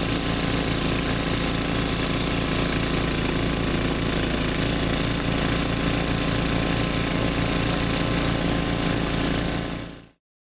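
A snowblower's small engine running steadily at constant speed with a fast, even pulse; it cuts off suddenly near the end.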